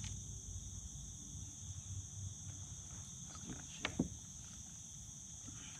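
Crickets or similar insects chirring in a steady, high-pitched chorus, with a low rumble beneath and two sharp knocks about four seconds in.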